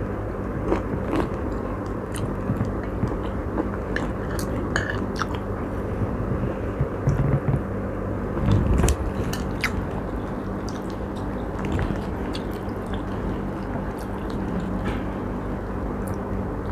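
A person biting and chewing chicken steak close to the microphone, with scattered short clicks, over a steady low background hum.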